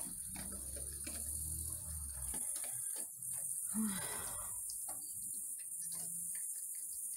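A dog eating from a bowl, small irregular clicks of chewing and crunching, over a steady high chirring of crickets. About four seconds in comes one brief low voice-like sound.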